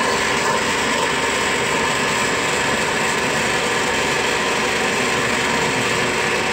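Vacuum pump of a CNC router's vacuum hold-down table running steadily, an even loud rushing noise with a faint hum in it. Near the end it drops noticeably in level as one of the table's zone valves is turned.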